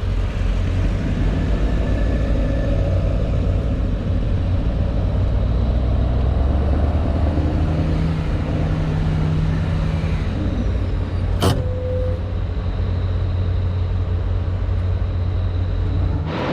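Suzuki Samurai driving, a steady low engine and road rumble heard from inside the cabin. A single sharp knock comes about eleven seconds in, and the rumble cuts off abruptly near the end.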